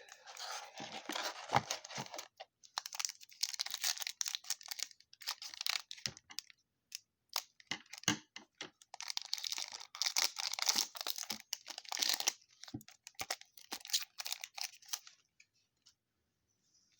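Wrapper of a trading-card pack being torn open and crinkled, and the cards shuffled in hand. Scratchy rustling and clicks come in bursts and stop about fifteen seconds in.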